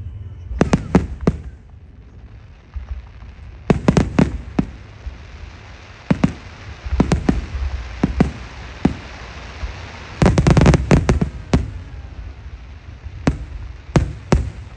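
Aerial fireworks shells bursting overhead: irregular clusters of sharp bangs over a steady low rumble, with a dense rapid run of bangs about ten seconds in.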